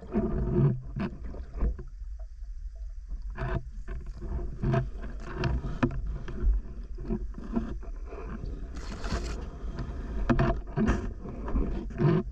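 Muffled underwater noise picked up by a diving camera as a freediver swims: a steady low rumble with irregular knocks and swishes, and a brief hiss about nine seconds in.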